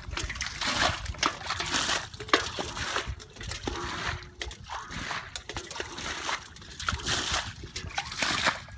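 Muddy water sloshing and splashing in repeated irregular strokes as it is scooped and bailed with a metal basin.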